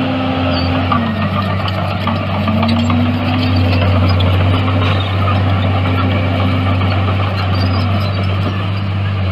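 Komatsu D61EX bulldozer's diesel engine running steadily, its pitch sagging and picking back up a few times as the load changes.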